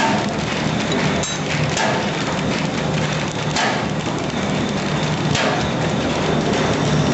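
Automatic paper bag making machine running: a dense mechanical clatter over a steady low hum, with a louder stroke about every two seconds.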